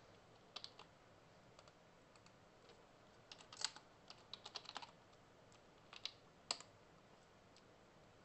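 Keystrokes on a computer keyboard: a few scattered clicks, a quick run of about a dozen in the middle, then a few more, over faint room hiss.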